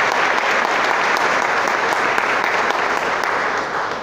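Congregation applauding, a steady wash of many hands clapping that begins to die away near the end.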